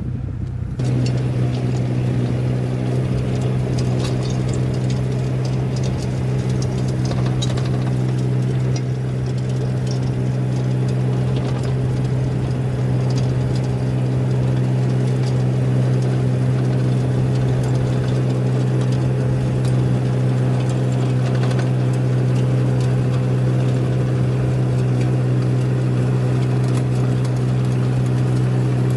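Engine of a small construction machine running at a steady speed, with scattered light clicks and knocks over it. It steps up in level about a second in, then holds steady.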